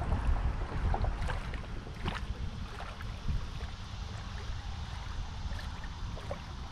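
Wind rumbling on the microphone over water lapping at the shoreline, with a few light clicks about a second or two in.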